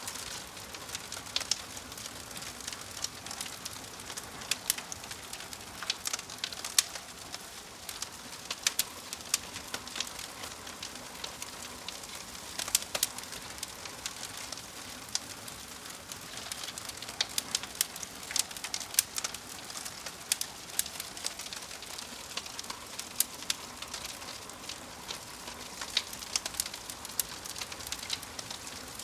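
Wood fire burning in a fireplace: irregular sharp crackles and pops, several a second, over a soft steady hiss.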